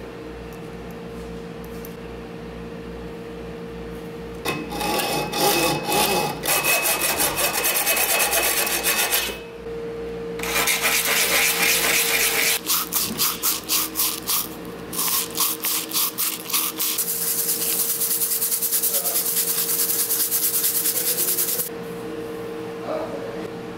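Rapid back-and-forth rasping strokes of a small brass rod being rubbed by hand on sandpaper to smooth its end. The strokes come in long runs starting about four and a half seconds in, with a short pause in the middle, and stop shortly before the end.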